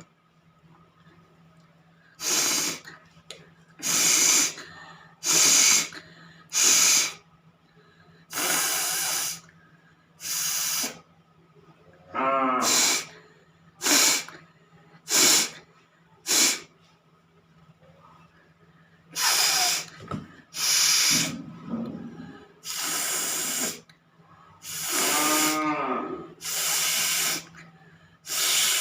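A woman blowing hard through her nose again and again: about sixteen short hissing blasts of air with brief gaps between them, two of them with her voice sounding through.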